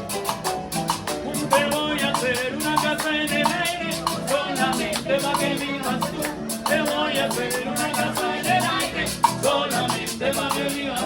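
Instrumental vallenato passage played on harp and guitar, with quick plucked runs over a steady, fast shaker rhythm from the percussion.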